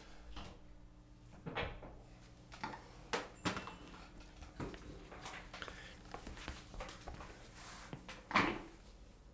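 Scattered light knocks, clicks and rustles of a guitar and gear being handled, with a louder knock near the end, over a faint steady electrical hum.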